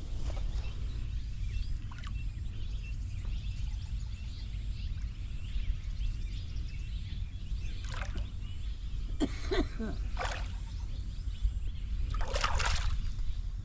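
Flowing river water with a steady low rumble, broken by a few short noises about eight and ten seconds in and again near the end.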